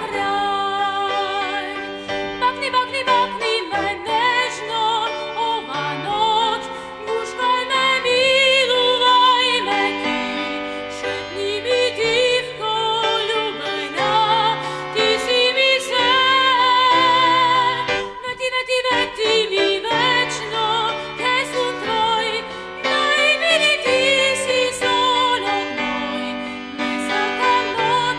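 A woman singing a slow song with a wide vibrato on long held notes, over instrumental backing music.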